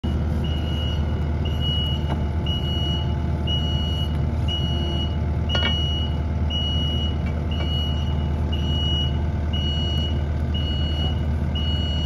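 Heavy machine's engine idling steadily under a repeating electronic warning beep, about one beep a second. A single sharp click comes about halfway through.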